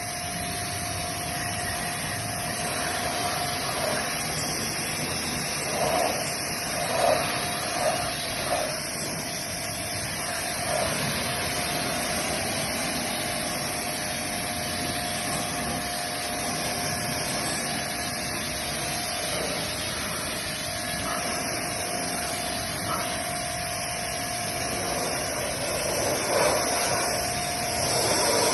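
High-pressure washer running with its spray gun: a steady hiss of spray over a constant motor whine, swelling louder a few times about a quarter of the way in and again near the end.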